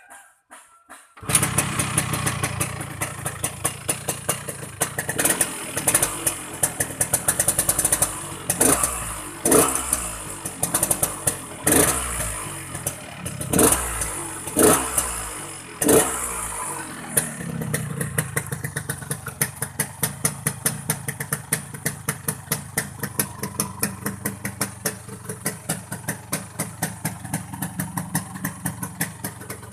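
Yamaha RX-King two-stroke single-cylinder motorcycle engine starting about a second in. It is blipped up in about eight short revs, then settles into a pulsing idle with a snoring ('ngorok') exhaust note.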